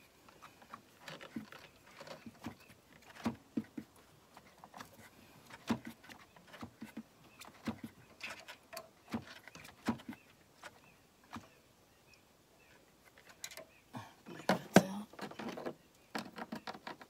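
Irregular light metallic clicks and taps of a small hand tool turning out a bolt on the diverter valve of an N14 engine, with a quicker, louder run of clicks near the end.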